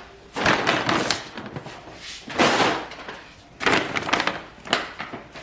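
Grocery bags being handled and set down on the floor: three rustling bursts and a short knock near the end.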